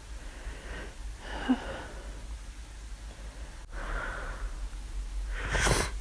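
A person with the flu sneezing: a short, clipped sneeze about one and a half seconds in, a breath drawn in around four seconds, and a louder sneeze near the end.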